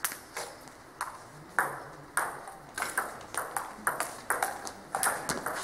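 Table tennis ball clicking off the bats and the Cornilleau table in a rally. A few scattered taps come first, then from about two seconds in a steady run of strikes, two to three a second.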